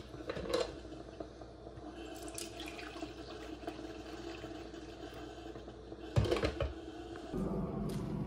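Hot coffee poured from a glass drip-coffee-maker carafe into a ceramic mug, a steady trickle filling the cup, after a clink as the carafe is lifted out. A sharp knock about six seconds in, then a steady low outdoor rumble near the end.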